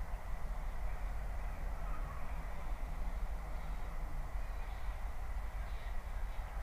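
Steady outdoor background noise: a low rumble with a hiss, unbroken.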